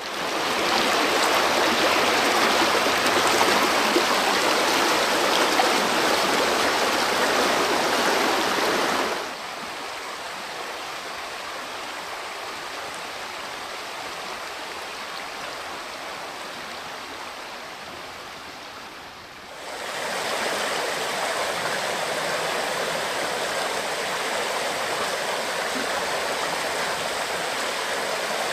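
Water running steadily in a stream. It is loudest for the first nine seconds, drops abruptly to a quieter level, then turns louder again about twenty seconds in.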